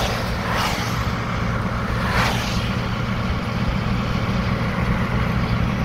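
Road noise inside a moving vehicle's cabin: a steady low rumble of engine and tyres on the road, with three brief whooshes in the first two and a half seconds.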